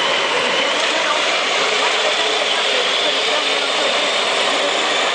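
Brushless-converted CEN Genesis RC truck (Castle Mamba Monster, 2200kV motor on 4S LiPo) running at full throttle under the load of a pull: a steady electric whine over a loud, even rush of drivetrain and tyre noise.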